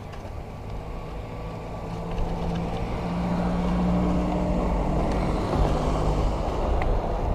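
A motor vehicle passing on the road, its engine and tyre noise building from about two seconds in and staying loud to the end.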